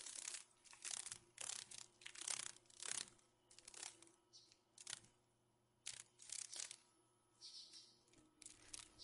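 Faint rustling and crunching of dry fallen leaves in short, irregular bursts.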